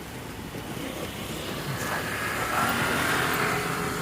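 Street traffic: a motor vehicle passing close by, swelling from about a second and a half in and easing near the end, over steady road noise.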